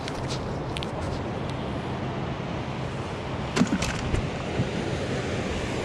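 Steady wind rumble on the microphone with surf noise from the breaking waves. A few light clicks and knocks sound through it, the loudest a quick cluster a little past halfway.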